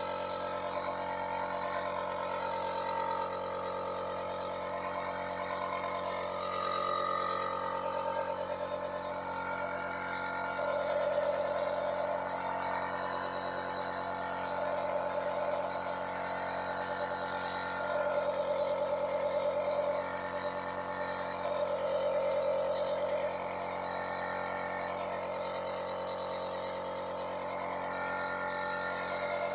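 An electric power tool's motor running steadily with a steady hum, swelling louder every few seconds, typical of a tool being pressed into wood.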